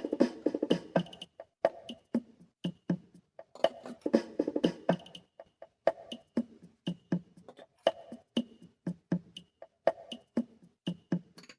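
Instrumental break of a song: a sparse percussive beat of short, dry hits, about two or three a second, with silence between them.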